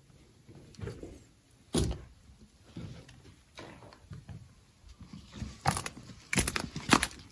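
Footsteps and knocks on debris, in irregular sharp clicks and crunches. There is one louder knock about two seconds in, and the impacts come thicker and more regular, at about a walking pace, near the end.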